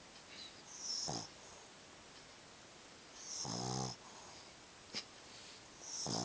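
A dog snoring in its sleep: three snores about two and a half seconds apart, each with a whistling hiss, the middle one longest and loudest with a low buzz. A short click comes about five seconds in.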